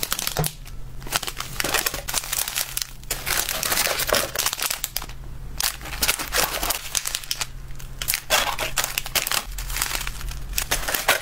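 Clear plastic zip-lock snack bags crinkling and rustling as they are handled and pressed into a cardboard box, in irregular stop-start bursts.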